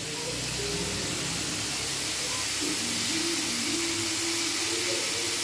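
Diced beetroot sizzling steadily in an aluminium kadai on a gas stove, a continuous frying hiss.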